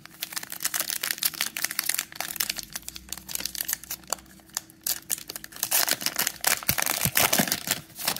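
Wrapper of a Panini Mosaic trading-card cello pack crinkling and tearing as it is pulled open by hand, with the crackling densest and loudest near the end.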